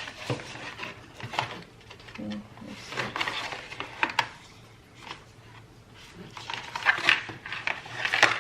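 Rustling and irregular clicks and taps of a small product box being opened and its contents handled: the packaged USB cable and paper quick start guide.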